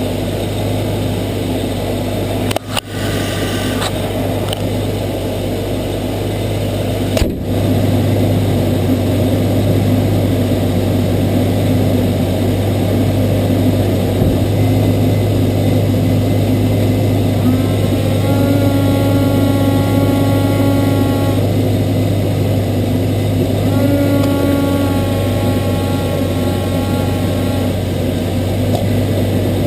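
Turbocharged Ford Barra 4.0-litre inline-six heard from under the bonnet, running steadily. Twice, in the second half, the engine rises and the GT3540 turbo whistles for a few seconds. The turbo has its blow-off valve deleted.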